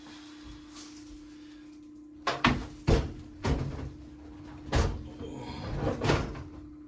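Over-the-range microwave knocking and bumping against its wall mounting plate and the cabinet above as it is lifted and worked onto the bracket: five heavy knocks spread over about four seconds, starting about two seconds in, over a faint steady hum.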